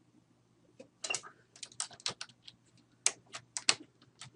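Typing on a computer keyboard: a run of irregular key clicks, starting about a second in.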